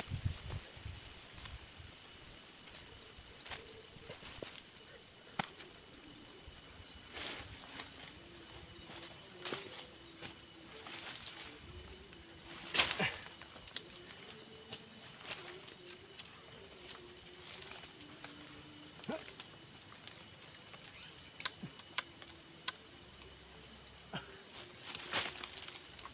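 Steady high-pitched insect chorus, with scattered knocks and scrapes from a long wooden pole being levered into the soil to pry loose a stubborn pasak bumi root. The sharpest knock comes about halfway through, and a few more come near the end.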